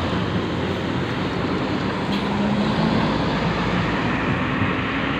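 Tour buses driving by in convoy: a steady rumble of engines and road noise, with no telolet horn sounding.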